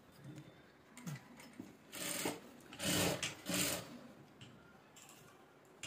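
Sewing machine run in three short bursts of stitching about two to four seconds in, sewing a folded strip onto a garment piece. Between the bursts there is only faint fabric handling.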